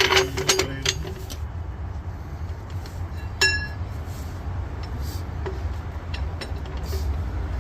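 Metal tools and parts clinking during work on a car's rear suspension, with one sharp ringing clink about three and a half seconds in, over a steady low rumble.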